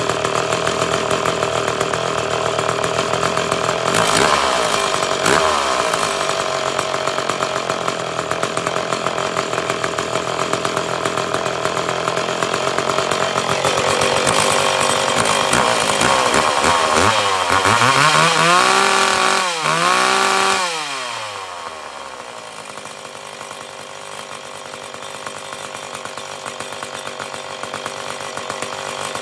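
McCulloch two-stroke chainsaw running while its carburettor jets are adjusted with a screwdriver. It runs steadily with a quick rev about four seconds in and two throttle blips past the middle, then drops to a lower, quieter idle.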